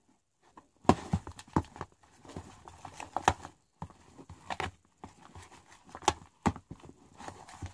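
Irregular hard clicks and knocks, a few a second, of a utensil and small bottles knocking against a plastic tub while slime ingredients are added and mixed.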